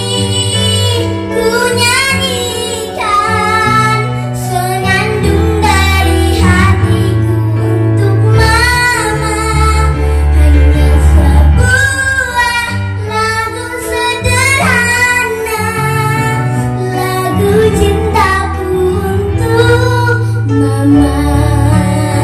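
A young girl singing an Indonesian children's song into a microphone, holding wavering notes, over electronic keyboard accompaniment with a steady bass line.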